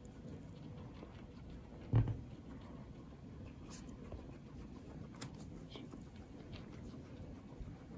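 Guinea pig nibbling and chewing hay and vegetables in faint, irregular small crunches, with one dull thump about two seconds in.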